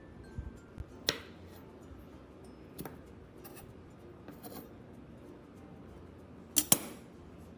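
Kitchen knife cutting strawberry slices on an end-grain wooden cutting board: scattered soft clicks and taps of the blade meeting the wood, with a louder double knock near the end.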